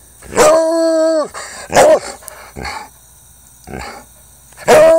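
Treeing Walker Coonhound baying: a long bawl of about a second that drops in pitch at its end, a short loud bark, a few fainter barks, then another long bawl near the end.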